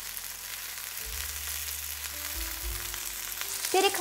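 Cubes of chicken breast sizzling steadily as they fry in oil in a nonstick pan, turned with a wooden spatula, with soft background music underneath.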